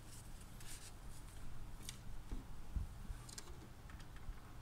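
Faint handling noises: a few soft clicks and rustles as tissue paper and a cleaning-liquid bottle are moved about the printer's ink capping station, over a low steady hum.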